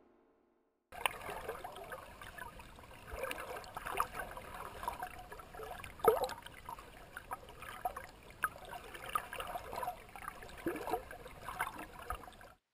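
Faint trickling and bubbling water with scattered small drips and plops, starting about a second in after a moment of silence.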